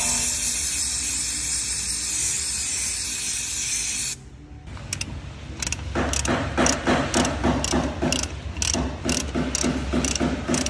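Aerosol spray hissing steadily for about four seconds, with a faint whistle in it, then cutting off suddenly. After a short lull, a rhythmic clicking beat follows, about three strokes a second.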